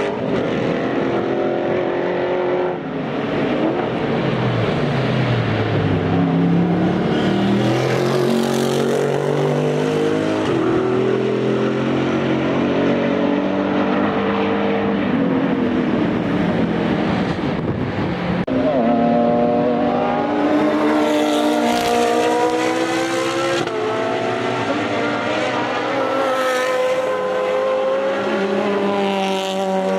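Several racing cars with loud open exhausts running past in close succession, their engines rising and falling in pitch as they accelerate and change gear, with no pause between cars.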